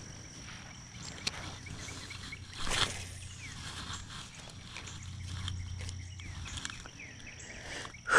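Outdoor ambience with a steady high-pitched drone and a low hum. About three seconds in comes a single loud whoosh as a spinning rod is cast, and a short loud sound falling in pitch comes right at the end.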